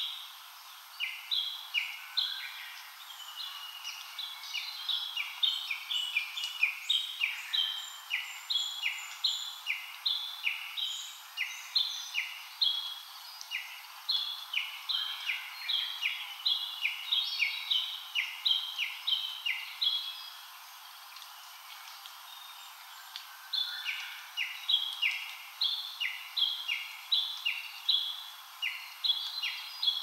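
A wild songbird singing a fast, rhythmic run of alternating higher and lower notes, repeated in long bouts with a pause about 13 seconds in and a longer one about 20 seconds in, over a faint steady forest hiss.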